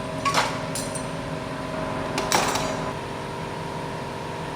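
Hand tools clinking against metal engine parts while the high-pressure fuel injector pipe is being removed: three or four sharp metallic clinks in the first two and a half seconds, over a steady background hum.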